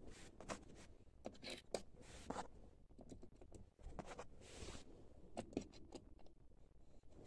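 Faint hand-handling noises: scattered small clicks and short rustles as ceramic bearings are picked up off cardboard and set on a bearing press.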